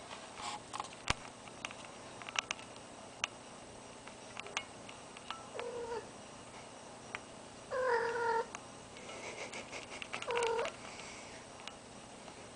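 Domestic cat in heat giving a few short, low yowling calls, the longest and loudest about eight seconds in, with scattered light clicks and rustles between them.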